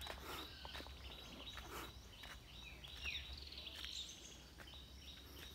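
Faint outdoor ambience with brief high bird chirps, a few falling in pitch, and scattered small clicks.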